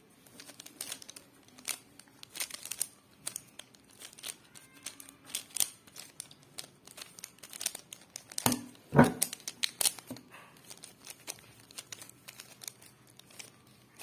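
Plastic 3x3 Rubik's cube being scrambled by hand: a quick, irregular run of clicks and rattles as the layers are turned, with two louder knocks about eight and nine seconds in.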